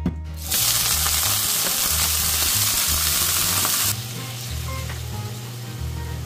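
Shrimp dropped into hot oil in a frying pan, sizzling loudly as they hit; about four seconds in the sizzle drops suddenly to a quieter, steady frying.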